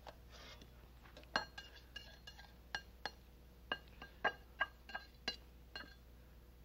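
Metal utensil clinking against a glazed serving dish while potato slices are pushed into place: about a dozen light, irregular taps, each with a brief ring.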